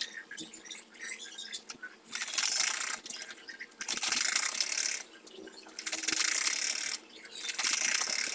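Domestic sewing machine stitching in short runs of about a second each, four runs with brief pauses between, after a couple of seconds of light clicks.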